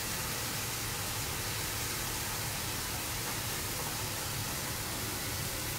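Wet onion masala paste frying in a kadai over a gas burner, a steady hiss with a low hum underneath, as the paste cooks down and the onion's water boils off.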